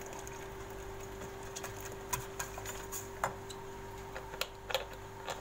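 Scattered light clicks and taps of a wire whisk and a milk carton against a stainless steel pot as more milk is added to béchamel sauce, more of them in the second half, over a steady low hum.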